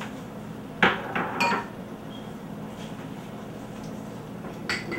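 Metal cooking utensils and pans clattering: a few sharp knocks and clinks about a second in and another near the end, over a steady low hum.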